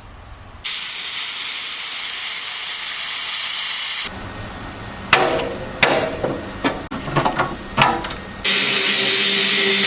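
Plasma cutter cutting 1/8 inch steel plate: a loud, steady hiss with a thin high whine for about three seconds. Then comes a run of metal knocks and clanks, and near the end another loud steady hiss from a power tool.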